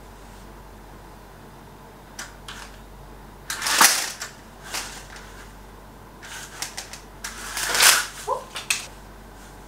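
Wooden Venetian blind worked by its pull cords: clicks from the cord mechanism and two longer rattling clatters of the slats, about 4 seconds in and again near the end as the blind comes down.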